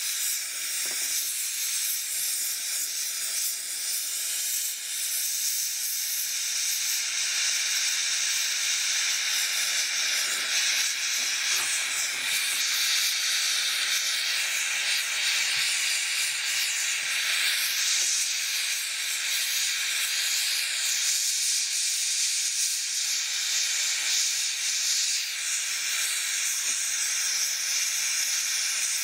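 MAP gas and oxygen torch flame giving a steady high hiss as it heats a crucible of scrap sterling silver to melting.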